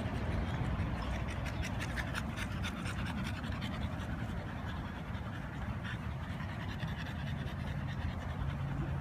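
French bulldog panting close up, quick rhythmic breaths several times a second, strongest in the first few seconds and lighter later.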